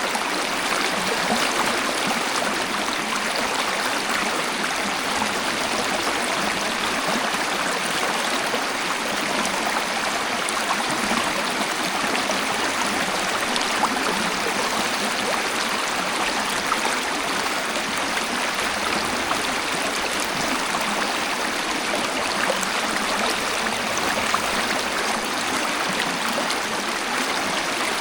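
Waterfall: water falling and splashing in a steady, even rush, without a deep rumble.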